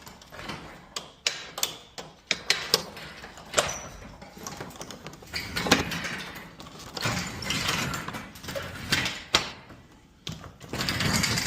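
Garage door roller and hinge hardware being worked during a roller replacement: a run of sharp, irregular metallic clicks and knocks, with a steadier rubbing noise near the end.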